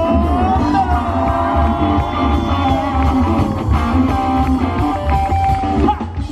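Live band music: an electric guitar plays a short solo line with bent notes over a pulsing bass and drum groove.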